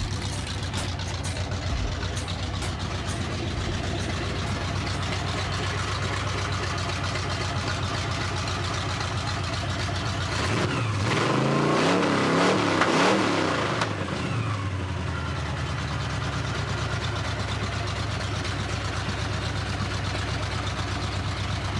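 1982 Chevy C10's built 350 small-block V8 idling steadily, revved once about halfway through: the pitch climbs and falls back over about three seconds, then it settles back to idle.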